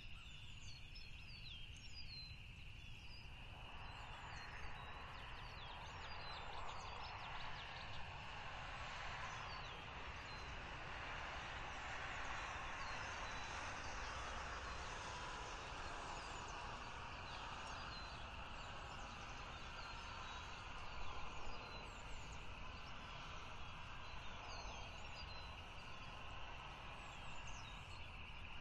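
Outdoor ambience: small birds chirp now and then over a steady high hiss and a low rumble. A broad rushing noise swells a few seconds in and slowly fades toward the end.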